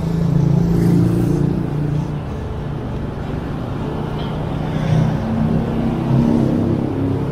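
Road traffic on a city street: car engines running and passing, with a low engine hum that shifts in pitch.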